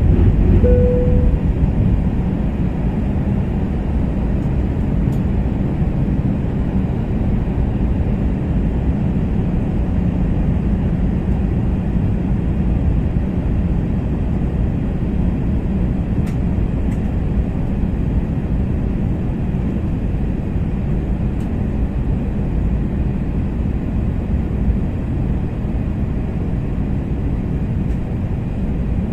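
Steady cabin noise inside an Airbus A320-family airliner on descent: a deep, even rumble of the jet engines and airflow around the fuselage. A brief single tone sounds about a second in.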